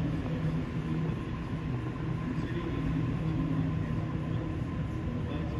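Electric suburban train running, with a steady hum and a faint high whine.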